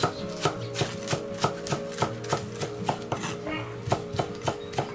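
Chinese cleaver chopping spring onions on a wooden cutting board, each stroke a sharp knock on the wood, in a steady rhythm of about three strokes a second.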